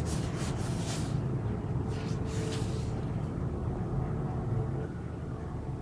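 Steady low background rumble, with a few brief rustling noises in the first three seconds.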